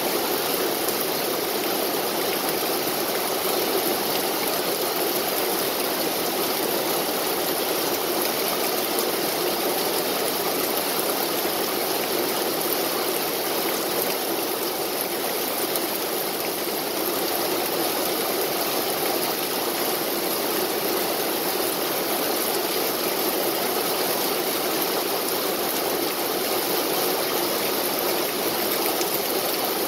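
Steady heavy rain, an even unbroken hiss.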